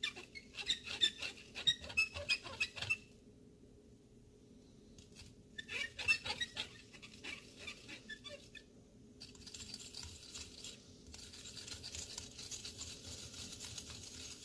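A fork stirring baking soda into warm water in a small cup, its tines clicking and scraping against the cup in quick runs of ticks. There are two brisk runs with a pause between them, then softer stirring near the end.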